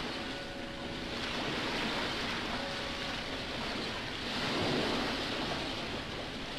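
Pool water churning and splashing as a large elephant seal thrashes and rears up in it, a rushing wash of noise that swells and ebbs, loudest a little past the middle.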